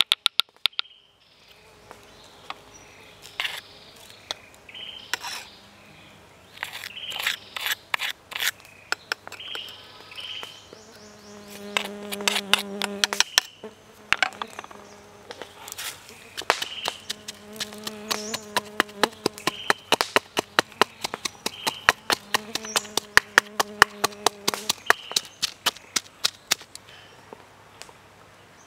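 A wooden pestle knocking in a stone mortar, pounding chilli, spices and aromatics in sharp knocks a few per second. A fly buzzes close by, on and off.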